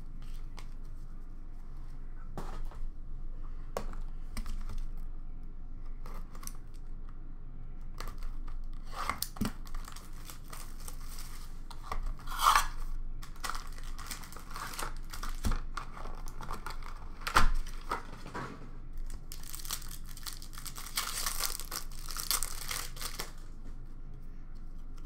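Hockey card box and packs being opened by hand: scattered taps and clicks, then tearing and crinkling of pack wrappers. The tearing comes in short bursts, with the longest stretch about three quarters of the way through.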